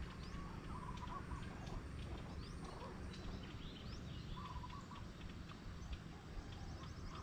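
Several wild birds chirping and calling, with short rising whistles and a chattering call that comes back a few times, over a steady low rumble.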